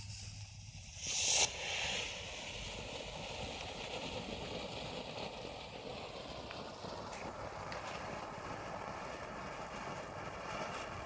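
Fountain firework burning, with a brief loud rush about a second in, then spraying sparks with a steady hiss.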